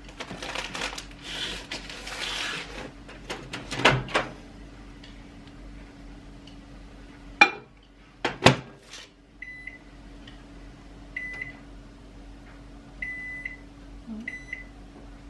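Microwave oven being loaded and set: rustling and clatter, two sharp clacks about halfway through, then four short beeps from its keypad, over a steady low hum.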